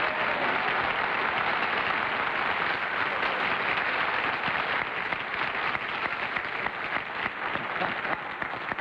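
Studio audience and panel applauding, a dense, steady clapping that slowly fades toward the end.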